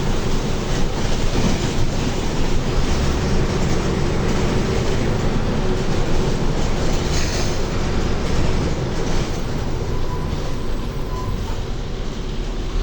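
Mercedes-Benz OF-1724L bus's front-mounted OM 924 diesel engine running steadily as the bus drives, mixed with road noise and body rattle. The engine eases off a little about ten seconds in.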